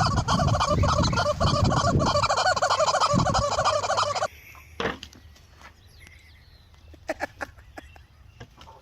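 A flock of poultry calling together in a dense chorus of rapid, warbling calls. The chorus cuts off suddenly about four seconds in, leaving only a few faint clicks.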